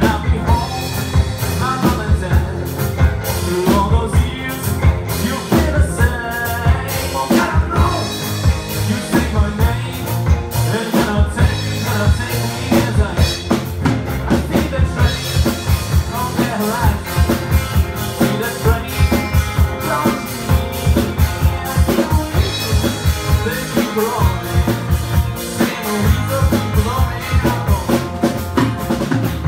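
A live rock band plays an instrumental stretch: a drum kit keeps a steady beat under electric guitar, acoustic guitar and bass.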